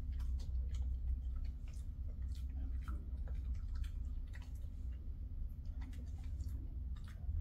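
Irregular small crunches and clicks of a dry dog treat, about two a second, over a steady low hum.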